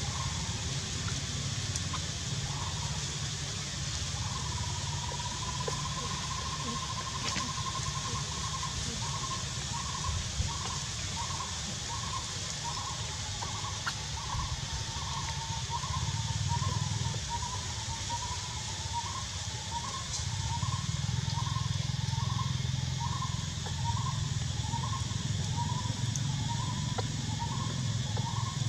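Outdoor ambience with wind rumble and a steady hiss, over which a faint high animal call holds one note for a few seconds, then repeats as short even chirps about one and a half a second.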